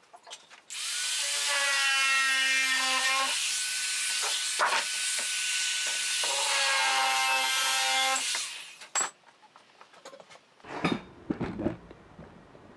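Handheld electric power tool cutting thin aluminium sheet, its motor whining through the cut for about seven seconds before it stops. A few knocks and clatter follow near the end.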